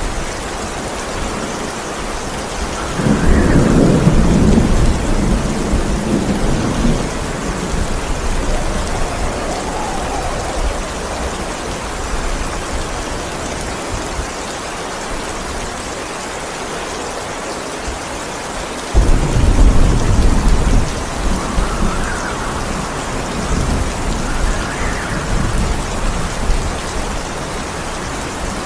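Steady rain with two rolls of thunder: the first rises about three seconds in and rumbles away over several seconds, the second breaks suddenly about two-thirds of the way through and rumbles on for several seconds.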